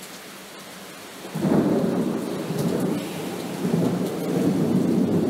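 Rain falling steadily, then about a second in a long rumble of thunder breaks in loudly and keeps rolling.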